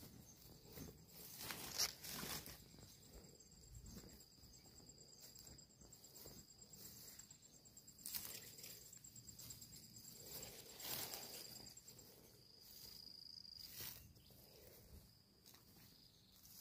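Faint footsteps and rustling of undergrowth from someone walking slowly, with the loudest brush about two seconds in. A high insect trill runs in the background and stops near three-quarters of the way in.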